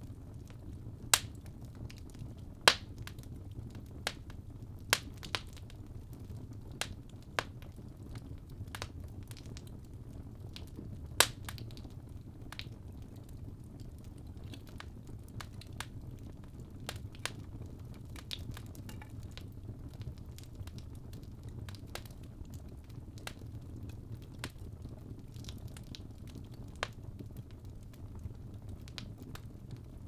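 Fire in a fireplace crackling, with irregular sharp pops over a low steady rumble; the loudest pops come in the first dozen seconds.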